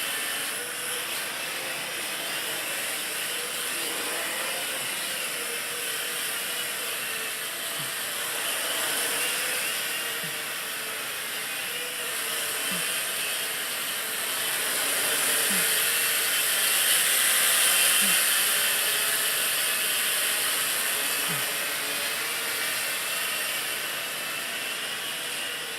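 WL Toys V949 micro quadcopter in flight, its four small motors and propellers whirring steadily, growing louder for a few seconds past the middle.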